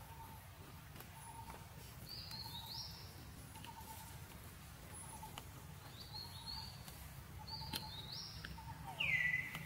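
Forest ambience with birds calling: short high chirps in pairs and a faint low note repeating about every half second. Near the end, a louder drawn-out call slides down in pitch and then holds.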